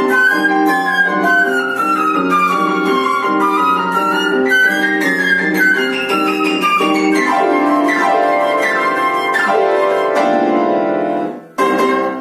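Live flute and piano music in a lively passage of quick rising and falling runs over a held accompaniment. It breaks off briefly and closes with two short final chords near the end.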